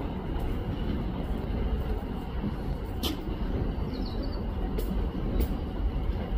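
Train running on the tracks with a steady low rumble. Sharp clicks come from the wheels or rails, and there is a brief high squeal a little past the middle.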